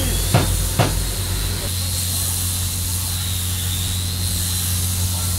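A motor hums steadily under a constant hiss, with three sharp knocks about half a second apart in the first second.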